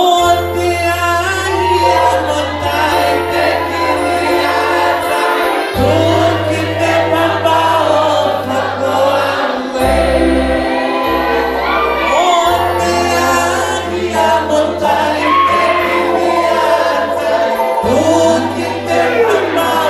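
A woman sings live through a microphone and PA, holding long notes over a seated string band's accompaniment, with a bass note that shifts every few seconds.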